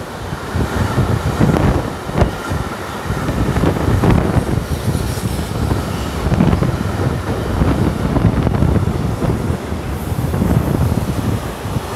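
Intermodal freight train of pocket wagons carrying lorry semi-trailers passing, with a loud rumble and clatter of steel wheels on the rails that swells and dips every second or two as the wagons go by.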